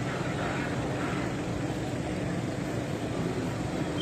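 A boat engine running with a steady low drone.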